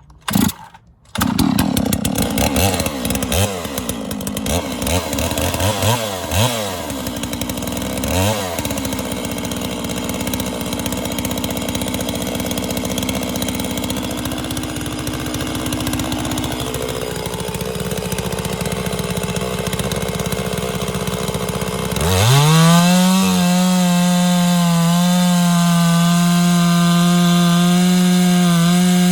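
Holzfforma G660 92cc two-stroke chainsaw engine catching about a second in and running unevenly, with several quick revs, then opened up about 22 seconds in to a steady high-speed run.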